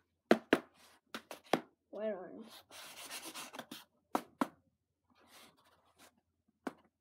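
Kit packaging and parts being handled by hand: a run of sharp clicks and knocks with a stretch of rustling in the middle, and a short voiced sound about two seconds in.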